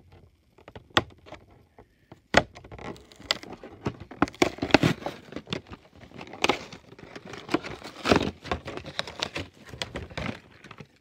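A toy's cardboard-and-plastic packaging being opened by hand: irregular sharp clicks, crackles and rustling, sparse at first and busier from a couple of seconds in.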